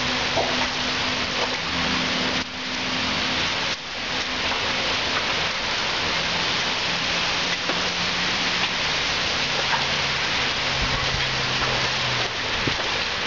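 Steady rain falling and splashing onto wet concrete, an even hiss, with a faint low hum underneath.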